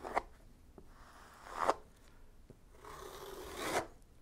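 Plastic squeegee scraping filled epoxy across a glass-sheathed timber panel. Three strokes: a short one at the start, a louder one about one and a half seconds in, and a longer one that swells near the end.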